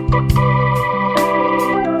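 Background music: sustained organ-like keyboard chords over a strong bass, with short percussive hits keeping a beat.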